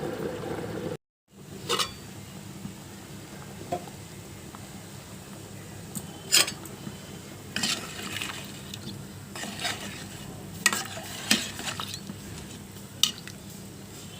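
Metal spoon stirring a simmering chicken curry in a metal pot, with scattered sharp clinks against the pot over a steady low hiss. The sound drops out briefly about a second in.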